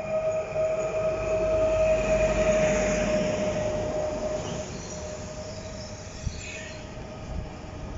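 Koleje Mazowieckie Pesa Elf (EN76) electric multiple unit running in past the platform: a steady high electric whine over the rumble of wheels on rail, loudest about two to three seconds in as the cars go by. A brief high squeal glides down in pitch around five to six seconds in.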